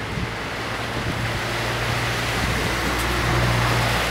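Heavy rain in a strong, gusting wind, with wind rumbling on the microphone; it grows louder about three seconds in.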